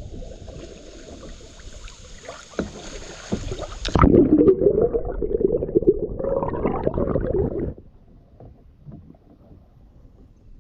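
Muffled river water heard underwater: low gurgling and rumbling, loudest from about four seconds in until nearly eight seconds, then fading to a faint murmur.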